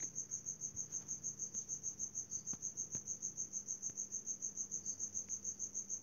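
A cricket chirping steadily, an even pulsing high trill of about eight pulses a second, with a faint low hum beneath it.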